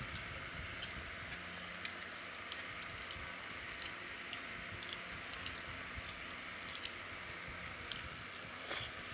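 Quiet eating by hand: chewing and the soft squish of rice being mixed with dal on steel plates, with small scattered clicks against the plates and a slightly louder brief sound near the end, over a steady background hiss.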